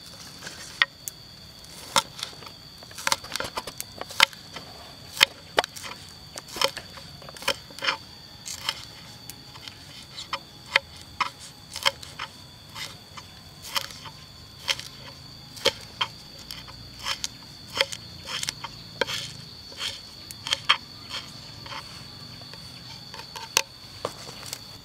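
Kitchen knife chopping a green vegetable on a wooden cutting board: irregular sharp knocks, about one to two a second, some in quick runs. A steady high insect drone runs underneath.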